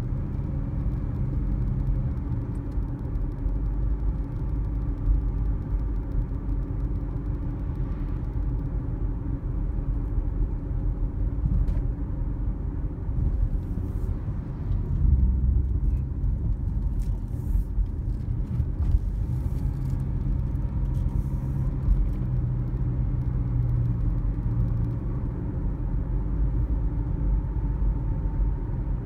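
Car driving on a suburban road, heard from inside the cabin: a steady low rumble of engine and tyres.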